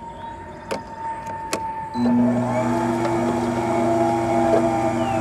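Two sharp knocks as the plunger is set into the feed chute, then about two seconds in a horizontal slow masticating juicer's motor switches on and runs with a steady hum, its auger pressing chopped plums and nectarines.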